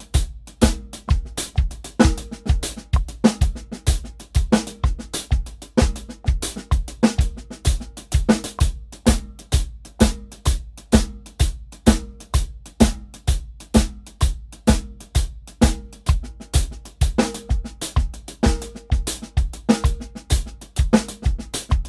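Drum kit played at a steady 128 beats per minute: bass drum on a regular pulse, with snare and cymbal strokes between, working through single paradiddle permutations in eighth-note triplets.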